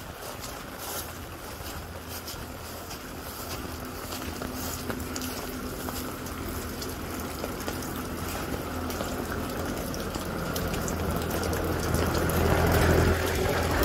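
Outdoor AC condenser's fan motor running with a steady hum that grows louder toward the end as it is approached, while the compressor is not running: a failed compressor start that the technician hopes is only a bad capacitor. Footsteps on wet ground early on.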